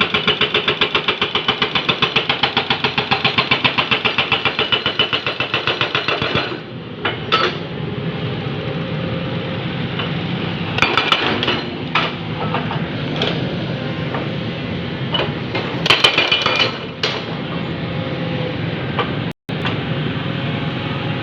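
Hydraulic breaker on a Jonyang JY623E excavator hammering rapidly and evenly, then stopping about six and a half seconds in. After that the excavator's diesel engine runs steadily, with scattered sharp cracks and knocks from breaking concrete.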